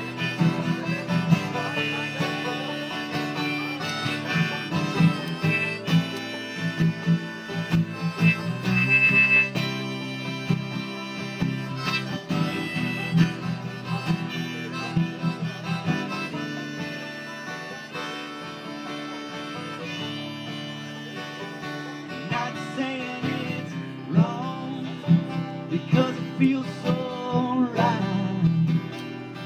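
Live banjo and acoustic guitar playing an upbeat bluegrass-style tune, with fast plucked banjo rolls over strummed guitar chords.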